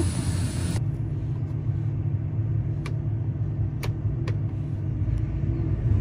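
Combine harvester running, heard from inside the cab: a steady low hum, with a hiss that cuts off under a second in and a few sharp clicks a few seconds in.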